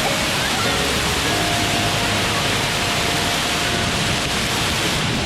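Waterfall pouring steadily into its plunge pool, a loud, even rushing noise.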